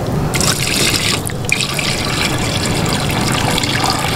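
A stream of water pouring into a metal cooking pot of raw chicken pieces, filling it to make stock; a steady splashing pour with a brief break about a second in.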